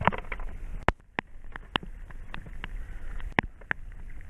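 About a dozen irregular sharp taps and knocks over a steady low wind rumble.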